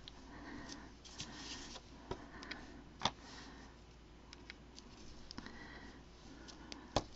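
Quiet handling sounds of a carved eraser stamp being pressed onto a paper tag: soft paper rustles and a few small taps, the sharpest about three seconds in and again near the end.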